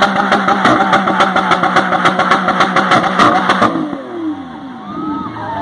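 Lamborghini Aventador's V12 held at high revs with a rapid crackle of pops over a steady note. About 3.7 s in the revs are released and the note falls away.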